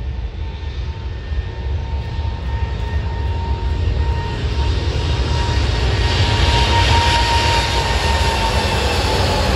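Airbus A350-900's Rolls-Royce Trent XWB turbofan engines running at high thrust, most likely on the takeoff roll. A steady rushing roar with a thin whine grows steadily louder, with a deep rumble underneath.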